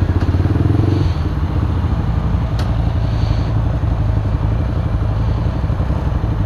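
Keeway RKS 125's single-cylinder engine idling with an even, rapid beat, a little louder in the first second, with other motorcycles idling close by. A single small click about two and a half seconds in.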